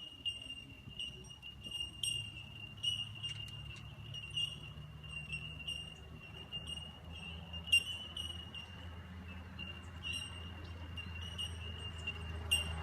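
Bell miners (bellbirds) calling in chorus: many short, clear, bell-like 'tink' notes on much the same pitch, overlapping at irregular intervals, over a steady low rumble.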